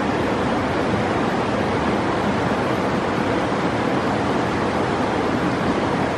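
Steady rushing of a fast mountain creek, an even roar of water with no breaks.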